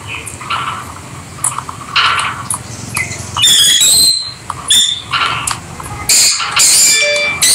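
Rosy-faced (peach-faced) lovebirds chirping and squawking: short shrill calls, sparse at first, then louder and more frequent, with a quick run of chirps about three and a half seconds in and loud screechy calls near the end.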